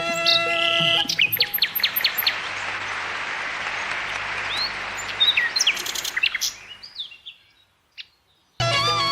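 Birds chirping in quick, repeated sweeping calls over a steady background hiss of outdoor ambience. The sound fades out and near silence follows. Relaxing background music stops about a second in and starts again just before the end.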